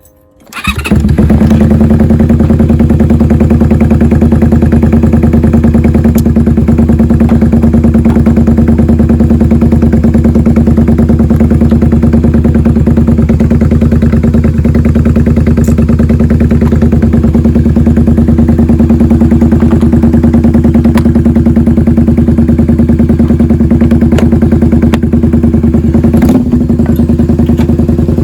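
Honda V-Twin Magna 250's V-twin engine, breathing through drag pipes fitted with a silencer insert, starts about half a second in and settles straight into a loud, steady idle.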